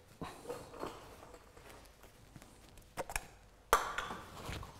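Hand tools clinking and knocking on metal parts: a few separate light clicks, then a louder clatter near the end.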